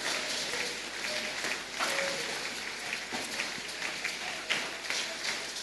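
Congregation in a large hall applauding: a steady wash of scattered clapping with faint voices mixed in.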